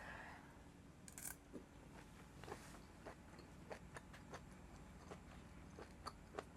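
Faint close-miked chewing of boiled octopus: soft, irregular wet mouth clicks, about two a second.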